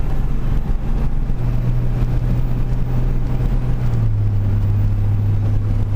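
Cummins turbo-diesel in a Dodge Ram running under way, a steady low drone that steps down a little in pitch about four seconds in.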